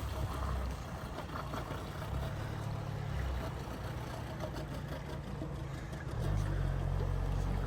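A vehicle's engine running low and steady as it drives through floodwater, over a rushing wash of water; the engine grows louder about six seconds in.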